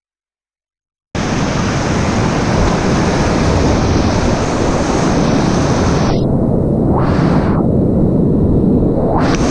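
Whitewater river rapids rushing loudly, with water and wind noise on the microphone, starting abruptly about a second in. About six seconds in the hiss turns duller, with brief splashing surges twice.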